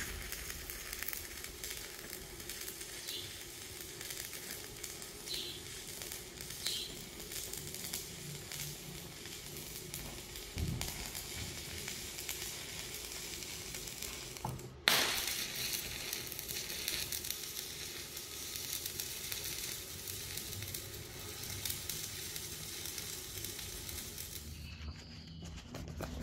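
Electric arc welding on a steel angle frame: the steady crackling sizzle of the arc. It breaks off briefly about fifteen seconds in, starts again, and stops shortly before the end.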